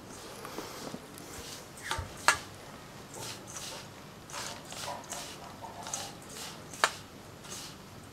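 Hands rubbing and squeezing oily crushed biscuit crumbs and sugar together in a stainless steel bowl: a repeated gritty rustle. Two sharp clinks against the steel bowl, about two seconds in and again late on, are the loudest sounds.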